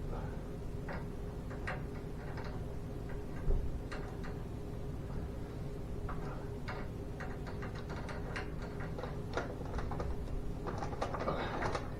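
Irregular light clicks and clinks of metal tools and garage door hardware being handled, with a single low thump about three and a half seconds in and a short burst of scraping and rattling near the end, over a steady low hum.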